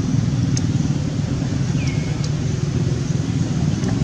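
Steady low rumble of outdoor background noise, with a few faint high chirps and one short, thin squeak falling in pitch about two seconds in.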